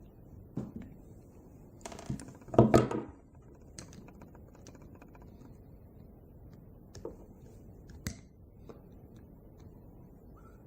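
Small hand tools and little metal parts clicking and clattering on a workbench while a small engine is unbolted: scattered single clicks and a short burst of rattling about two to three seconds in.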